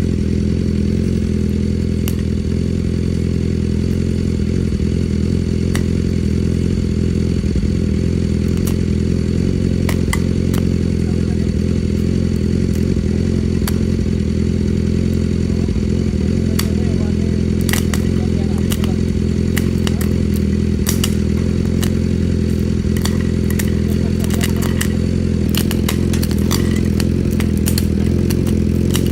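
Superbike engine running at a steady low speed with an even drone, broken by sharp exhaust crackles and pops. The pops are scattered at first and come thick and fast for the last dozen seconds.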